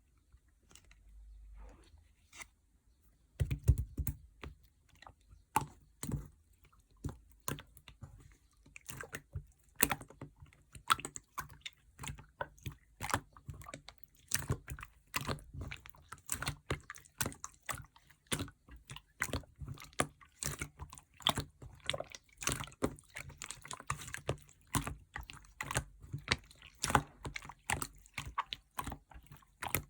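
Clear slime being squished and pressed by hand, making a dense, irregular run of wet pops and clicks that starts a few seconds in.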